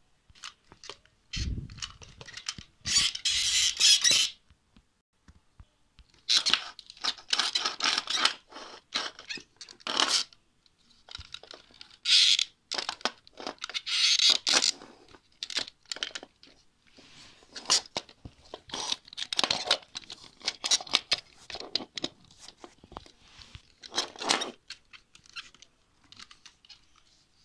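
Plastic toys, a toy train engine among them, handled close to the microphone: irregular scraping, rubbing and clicking in bursts with short pauses between.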